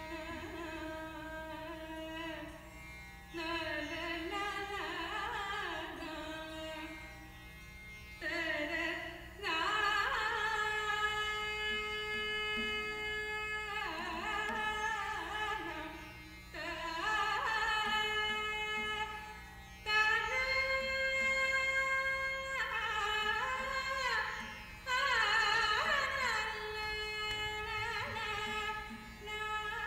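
A woman singing a South Indian Carnatic composition in raga Pantuvarali. She sings phrases with sliding, bending ornaments, broken by brief pauses, over a steady drone.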